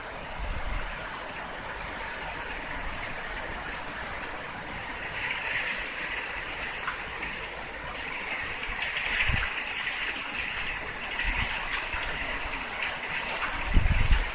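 Typhoon rain and wind coming through a narrow gap in an apartment window: a steady rush of heavy rain and wind that swells now and then, with low buffeting on the microphone near the end.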